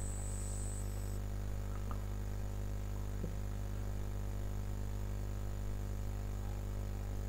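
Steady low electrical hum with a faint hiss, mains hum picked up by the recording. Two faint clicks come about two and three seconds in.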